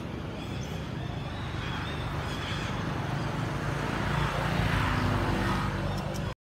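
Steady engine drone with a low hum, growing louder over the last few seconds and cutting off suddenly near the end.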